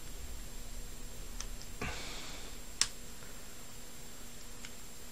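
3D-printed plastic twisty-puzzle pieces clicking and knocking together as they are pressed into a partly built cube. There are a few light clicks, a short scraping knock about two seconds in, and one sharp click just under three seconds in.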